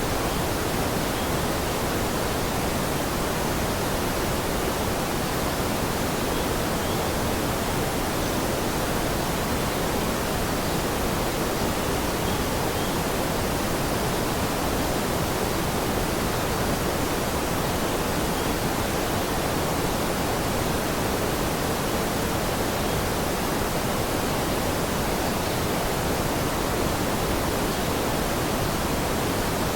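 Steady rushing water: an even, unbroken hiss with no separate drops, splashes or other events.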